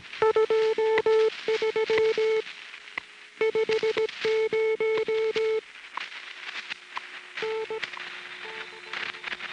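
Shortwave time station WWV heard weakly on a portable shortwave receiver: its steady audio tone keeps breaking up amid crackling static. The tone fades out about halfway through and returns only in brief weak snatches, over a fainter, lower steady whistle.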